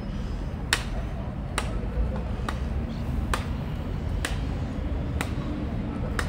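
Sharp, short clicks at an even pace, about one a second, over a steady low rumble.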